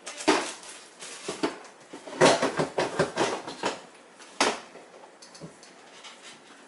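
Kitchen clatter of containers knocking and clinking as things are moved about in an open refrigerator: scattered knocks, a quick run of them about two seconds in, and one sharp knock at about four and a half seconds.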